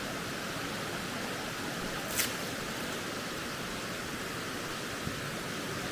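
Steady rush of running creek water. One short, sharp high click about two seconds in.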